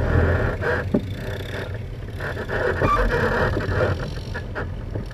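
ATV engine running hard, then easing off about half a second in to a lower, uneven run. A few sharp knocks come from the machine.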